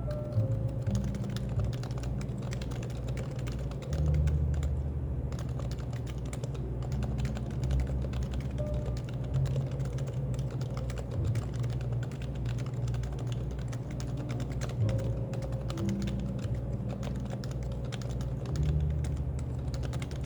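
Continuous fast typing on a Happy Hacking Keyboard: a dense, unbroken stream of keystroke clacks, over a low steady background hum.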